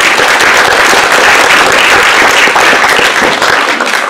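Audience applauding, loud and steady, beginning to die down near the end.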